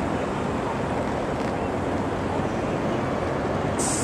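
Steady outdoor noise of traffic around the station area mixed with wind on the microphone. A short high hiss starts near the end.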